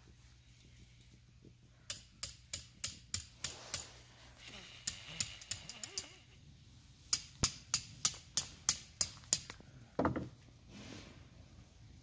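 Hammer driving tent pegs: quick runs of sharp metallic strikes, about four to five blows a second, in three bursts with short pauses between.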